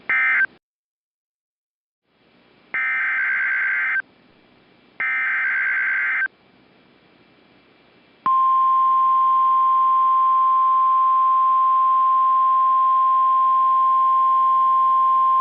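NOAA Weather Radio alert signalling. A short burst of data tones at the start, then a pause, then two warbling SAME digital header bursts of about a second each, then from about eight seconds in the loud, steady 1050 Hz weather radio alert tone, which announces the next warning.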